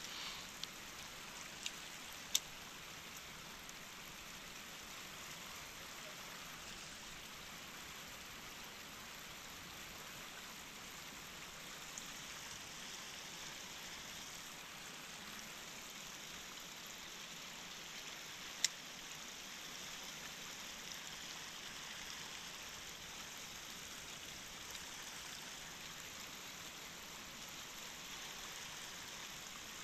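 Steady rush of water from a shallow river riffle running over rocks. A few sharp clicks come in the first few seconds and one more just past the middle.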